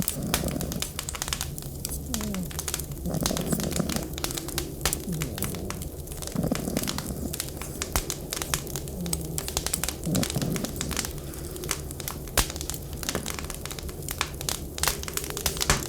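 Wood fire crackling with a dense run of small pops and snaps over a steady low rumble. A few short, low sliding tones come every few seconds.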